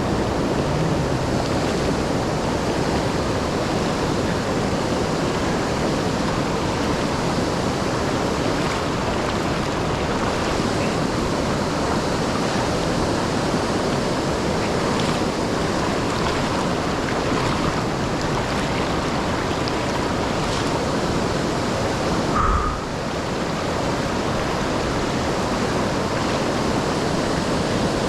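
Steady rushing water of the Kletzsch waterfall on the Milwaukee River, an even unbroken roar. A brief knock about three-quarters of the way through.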